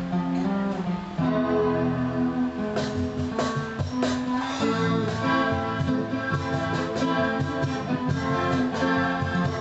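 Guitar-led instrumental music, with chords strummed and picked notes ringing on, changing chord every second or so, with no singing.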